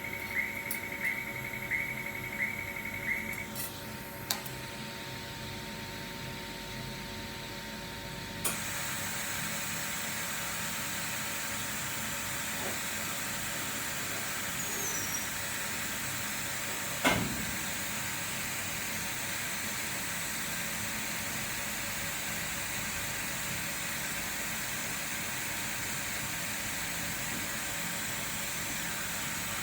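YAG laser welding machine running with a steady hum, firing short pulses about twice a second for the first few seconds. About eight seconds in, a steady hiss comes on and holds, and one sharp knock is heard near the middle.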